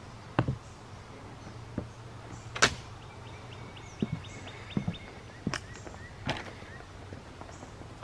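Footsteps of someone walking along a wooden plank walkway and onto dry leaf litter: irregular thumps on the boards, a few of them sharper crunches. A bird gives a short rapid trill about three seconds in.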